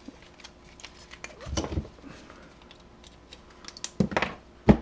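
Light clicking and tapping of hand tools and metal parts on a computer power supply as a small copper part is worked out of it, with a few louder knocks about a second and a half in and near the end.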